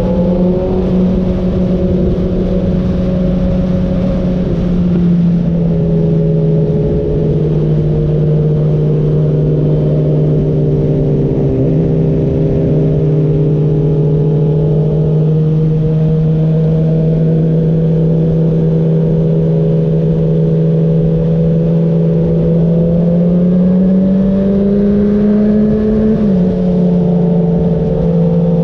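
Motorcycle engine running at a steady cruise, its pitch nearly level, then climbing slowly and dropping suddenly near the end as the rider shifts up a gear.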